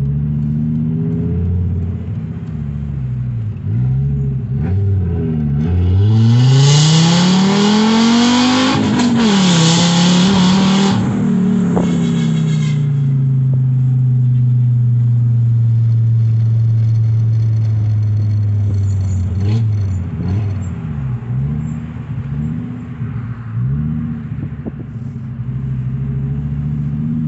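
Fiat Marea Weekend 2.4 20-valve inline-five, with an exhaust diffuser fitted in place of the catalytic converter, heard from inside the cabin while driving. About six seconds in the engine is pulled hard, its note rising steeply and loudly, then after an upshift it settles to a steady cruise, with the note dipping and recovering several times near the end as the throttle is lifted.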